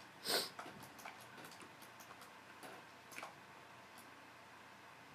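Faint, irregular clicks of a computer mouse as vertices are selected and dragged, coming more often in the first half and thinning out later. There is a brief louder noise about a third of a second in.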